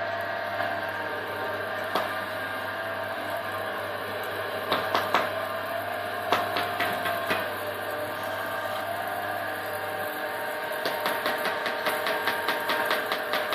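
Radio-controlled scale construction machine models working: a steady whine from their electric and hydraulic drives, its pitch wavering as they move, with sharp metallic clicks and knocks, and a fast even run of clicks near the end.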